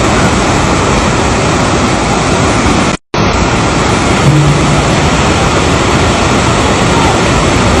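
Loud, steady rushing roar of the Godavari river in flood, pouring past a bridge after upstream dam gates were opened. The sound cuts out for a split second about three seconds in.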